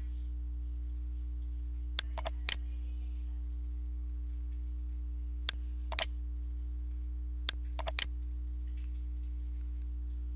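Computer mouse clicks in three short clusters a few seconds apart, over a steady low electrical hum.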